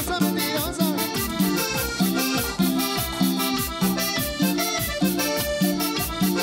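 Cumbia band playing live: an instrumental stretch with a lead melody over a steady bass and percussion beat.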